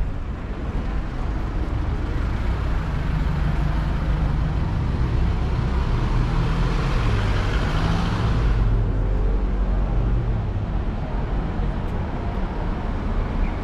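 Motor vehicle engine rumble with road noise. A rushing hiss builds through the middle and cuts off sharply about eight and a half seconds in.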